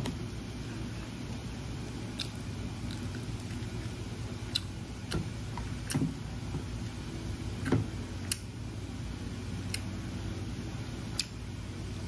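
Eating sounds: a spoon and fingers scraping and clicking against a plate and plastic food containers, eight or so light taps spread out over a steady low hum.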